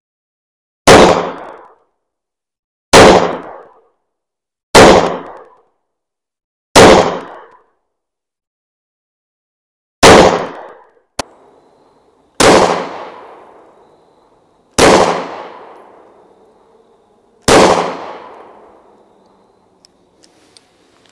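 IWI Masada Slim 9mm pistol firing eight slow, deliberate single shots about two to three seconds apart, each followed by a short echo tail.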